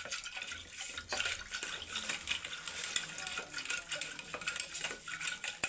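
A churning stick (mathani) worked back and forth in a small metal pot of curd to make lassi: a continuous swishing stir with many irregular clicks and knocks of the stick against the pot.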